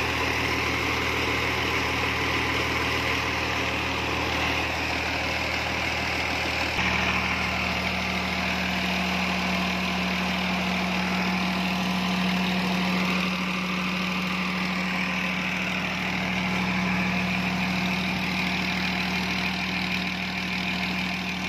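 Tractor diesel engine running steadily to drive a tubewell turbine pump, over the rush of water pouring from the pump's outlet pipe into a brick tank. The engine hum grows stronger about seven seconds in.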